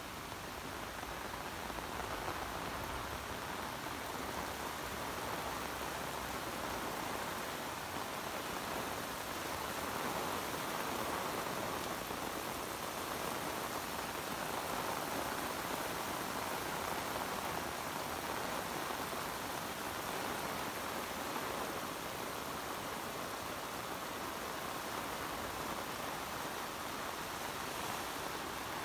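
Heavy rain pouring steadily, a dense even hiss that keeps the same strength throughout.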